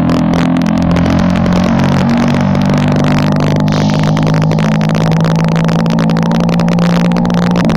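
Hero Splendor's single-cylinder engine running loud through an Akrapovic exhaust fitted without its dB killer, held at steady revs while riding.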